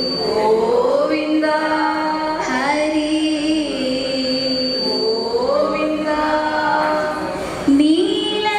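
A woman singing a slow melody into a microphone over a PA system, holding long notes and sliding up in pitch between them.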